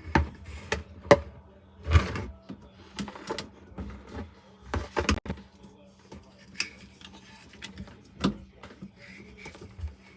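Irregular knocks and clicks of a plastic sink spray hose and its quick-connect fitting being handled and worked loose under a kitchen sink.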